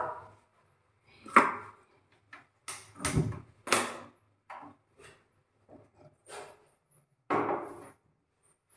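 Irregular knocks, taps and clatters of kitchen work at a counter, with a duller thump about three seconds in: a counter being wiped with a cloth and a kadai on the gas stove being handled.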